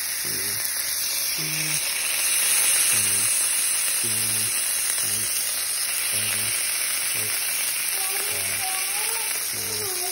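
Bonita fillet searing in very hot oil in a pan: a steady, loud frying sizzle.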